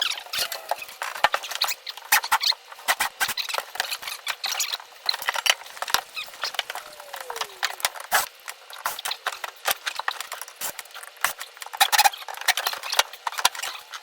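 Drill bit chattering and squealing against rivet heads as the rivets are drilled out: a dense, irregular run of clicks and scraping squeaks that stops just before the end.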